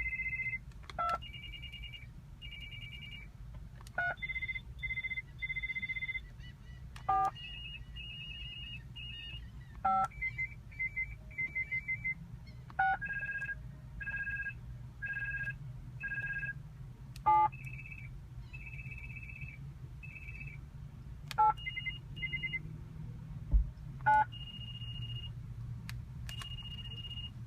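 Factory Lexus car phone in a 1999 LS400 playing its ringtones one after another: high electronic trilling ring patterns, each a different pitch or rhythm. A short keypress beep comes before each new tone, about eight times.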